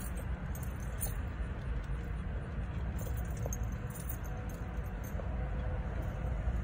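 Steady low outdoor rumble, such as traffic or wind on the microphone, with a faint click about a second in.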